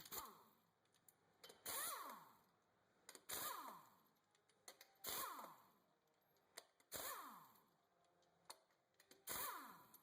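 Pneumatic impact wrench spinning off lug nuts in short, faint bursts about every two seconds, six in all, each one winding down with a falling whine.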